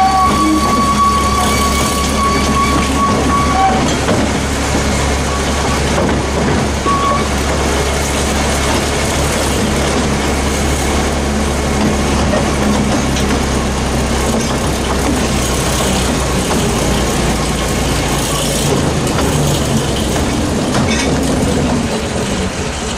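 Steady running noise of a narrow-gauge passenger train heard from on board: a low engine drone under the rumble and clatter of the carriage on the rails. A high squeal sounds over it for the first few seconds.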